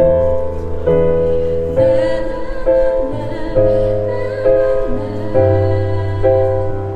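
Instrumental backing music (an MR track) with piano and bass playing sustained chords that change about once a second, closing out the song.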